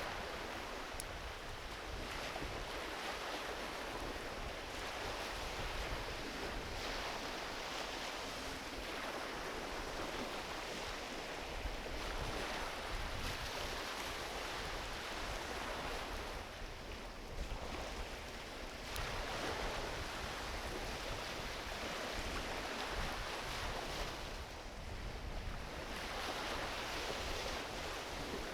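Small ocean waves washing onto a beach in a steady, surging hiss that eases briefly a couple of times, with a driftwood campfire burning alongside and giving an occasional pop.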